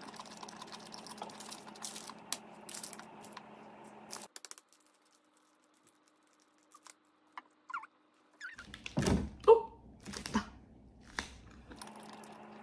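Chewing and light utensil clicks over a steady room hum, then after a quiet gap a few loud thunks and knocks as a whole drinking coconut is handled.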